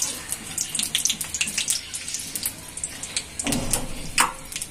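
Whole spices (cardamom, cinnamon and bay leaves) sizzling and crackling in hot oil in a karahi, with many quick sharp pops. There is a dull bump about three and a half seconds in.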